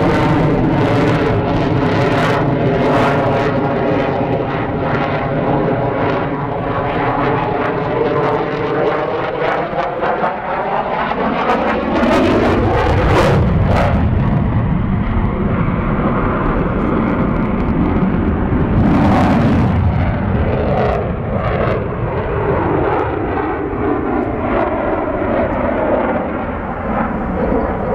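F-16 fighter jet engine noise during a display flight: a loud jet sound with a sweeping, phasing tone that slides down in pitch for about twelve seconds, swings sharply around midway, then sweeps again as the aircraft turns overhead.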